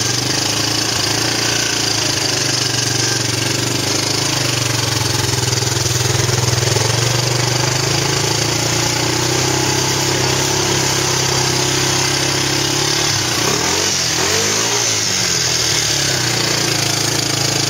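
ATV (quad) engine running steadily, revved up and back down briefly about two-thirds of the way through.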